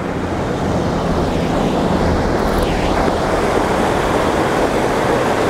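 Steady rush of a shallow river running over rocks.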